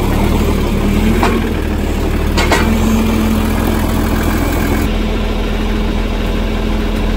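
John Deere tractor engine idling steadily, with two sharp knocks about one and two and a half seconds in.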